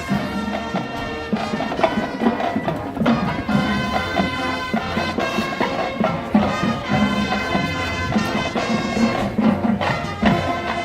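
A marching band playing live: brass and woodwinds hold chords over a steady drumline beat.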